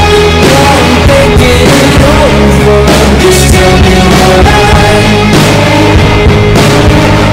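Background music: a rock-pop song with a singing voice over a steady beat.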